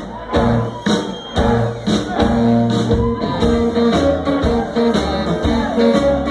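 Live band playing: electric guitar leading over a steady drum beat.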